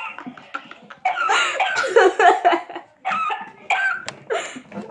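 A girl laughing and shrieking loudly without clear words, in two long runs with a short break between them, and a short sharp click near the end.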